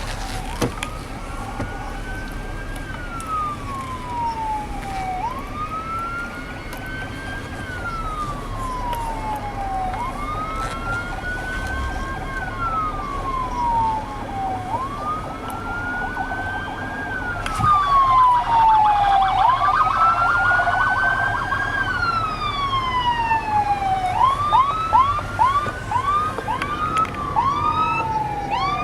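Electronic emergency-vehicle siren sounding a wail: a quick rise in pitch and a long slow fall, repeating about every four and a half seconds. Near the end it switches to a fast yelp of short, rapid sweeps.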